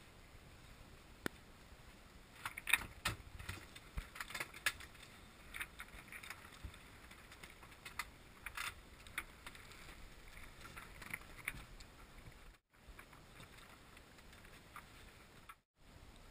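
Faint water noise aboard a Dazcat 1150 sailing catamaran under way, with scattered light clicks and rattles from the rig and deck gear. The sound cuts out completely twice, briefly, near the end.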